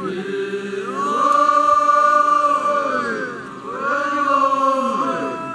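A group of voices singing together in two long, held phrases, each swelling up and gliding down at its end.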